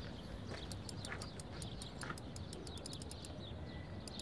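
Birds chirping in short repeated calls over a steady low background rumble, with a fast run of high, thin ticks, about five a second, through most of the middle.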